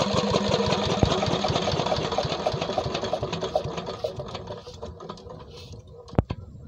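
Petter-type SD 23 HP single-cylinder diesel engine running down after being shut off: its rapid clatter slows and fades over about five seconds. A single sharp knock comes near the end.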